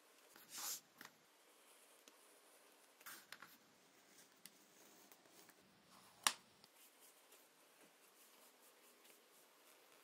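Quiet, short scrapes of a hand edge beveler shaving the edges of a small leather strip, at the start and again around three seconds in. One sharp tap a little after six seconds in is the loudest sound.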